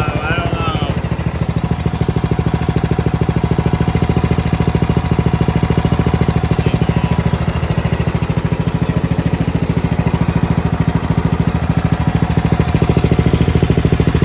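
Riding lawnmower's small petrol engine running steadily at a constant speed, with an even, rapid firing beat.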